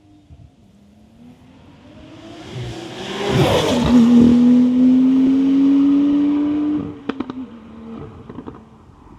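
Porsche 992.2 Carrera T's twin-turbo flat-six through a Soul Performance sport link-pipe and valved-muffler exhaust, accelerating: the note climbs, surges loudly about three and a half seconds in, then holds a steady rising pull until the throttle closes about seven seconds in. A run of sharp exhaust pops and crackles follows on the overrun.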